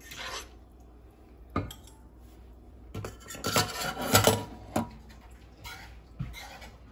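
Metal cookware and utensils clanking and knocking in a kitchen: a single knock about a second and a half in, then a cluster of clanks about three to five seconds in.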